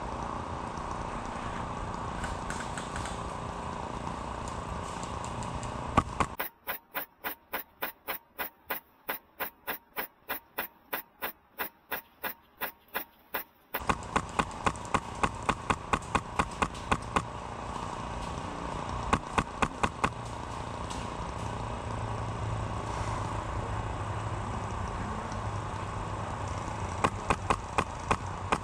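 Airsoft guns firing over a steady background hiss: a long run of evenly spaced shots, about three a second, then a quicker string of shots, and short bursts of about four shots twice later on.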